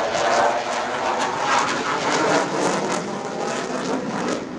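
Dassault Rafale fighter jet flying its display, a steady rushing jet noise that eases slightly near the end.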